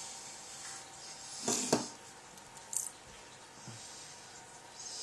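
A few light clicks and scrapes of small metal lock parts being handled as a pin-tumbler cylinder is taken apart, the loudest a short clatter about one and a half seconds in, then two fainter clicks.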